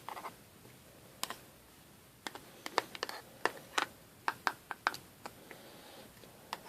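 Faint, irregular light clicks and taps, about a dozen, from hands working lightweight air-dry clay (iClay) in water.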